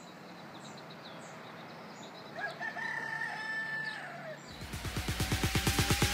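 Small birds chirping faintly, then a rooster crows once, for about two seconds. Electronic music with a fast, steady beat cuts in about four and a half seconds in.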